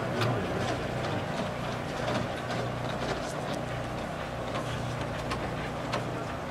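Small single-cylinder engines of several quarter midget race cars idling together in a steady hum.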